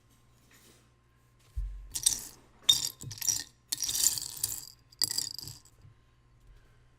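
Small plastic Lego pieces clattering and rattling as they are handled, in several bursts over about three and a half seconds, after a low thump about one and a half seconds in.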